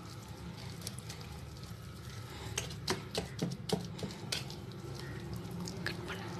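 Wire whisk stirring a thick, lumpy bread-crumb batter in a plastic bowl: soft scraping, with irregular clicks of the whisk against the bowl from about two and a half seconds in.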